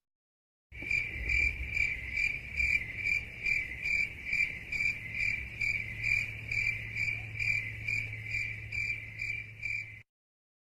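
Stock cricket-chirping sound effect: a steady run of chirps, about two a second, starting about a second in and cutting off shortly before the end, over a low hum. It is the 'crickets' effect used to mark an awkward silence.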